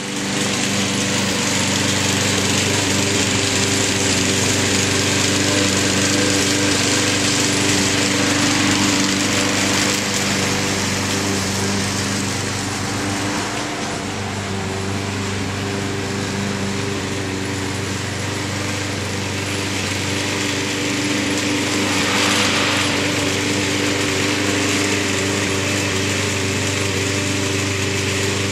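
Small gasoline engine of a walk-behind rotary lawn mower running steadily while mowing grass, with a brief louder rush of hiss about three-quarters of the way in.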